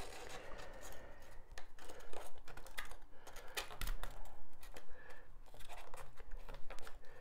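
Pieces of rigid Styrodur foam being pressed and rubbed against each other by hand while a piece is trial-fitted: a run of scratchy creaks and small clicks.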